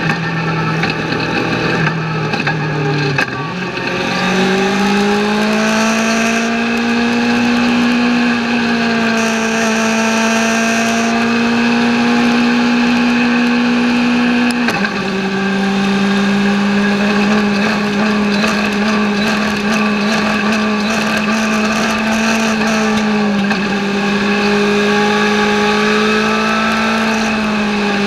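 A Legends race car's Yamaha motorcycle four-cylinder engine running hard, heard from inside the cockpit. Its pitch dips about 3 s in, climbs and holds high, drops abruptly about halfway through, then holds steady with a brief dip near the end.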